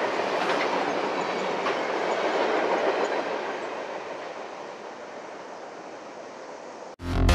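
Train rolling past with wheel clatter on the rails. The noise fades steadily over the last few seconds. Electronic music cuts in suddenly at the very end.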